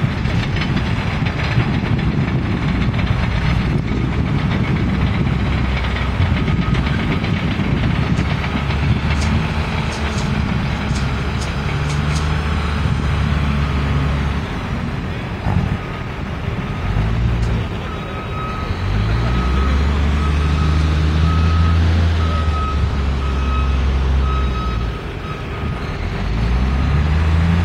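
Heavy diesel truck engines running with a low rumble that rises and falls in pitch as they rev, and a reversing alarm beeping steadily, roughly once a second, through the second half.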